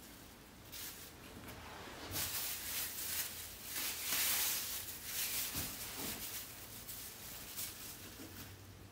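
Clear plastic wrap rustling and crinkling as hands smooth it over a wooden board, in irregular bursts that are loudest about four seconds in.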